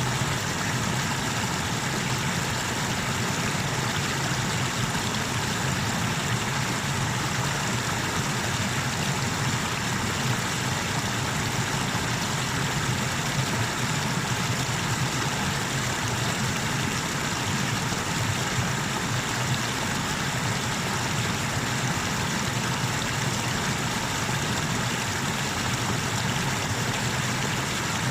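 Small waterfall on the Tanew river: water pouring and rushing over the cascade in a steady, even roar of noise with a low rumble underneath.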